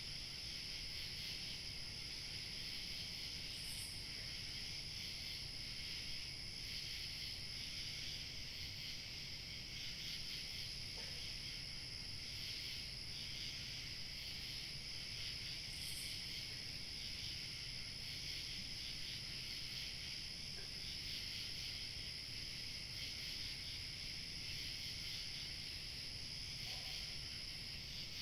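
Chorus of crickets chirping in a steady high trill, with a faint low rumble of light wind underneath.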